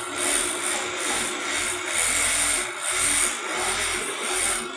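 Automatic template sewing machine stitching quilting lines through a thick cotton jacket panel, the needle running fast with a rasping mechanical noise that swells and dips every half second or so as the template carriage moves.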